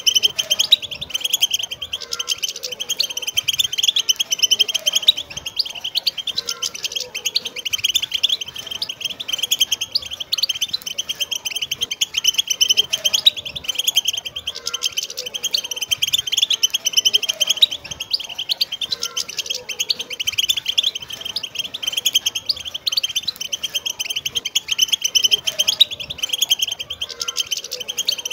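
A chorus of many wild European goldfinches twittering and singing together without a break: a dense, steady stream of fast, high chirps and trills.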